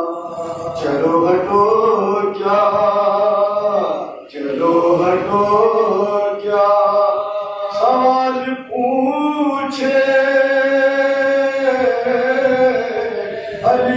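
Men's voices chanting a noha, a Muharram lament in Urdu, unaccompanied, in long held phrases with short breaks between them.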